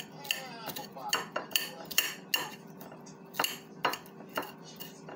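Kitchen knife chopping an onion on a ceramic plate: about a dozen irregular sharp clicks of the blade striking the plate, with a short pause midway, over a faint steady hum.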